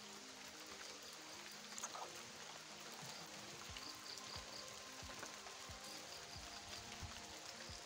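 Light rain falling steadily on a road and foliage, a faint, even hiss, with soft music playing quietly underneath.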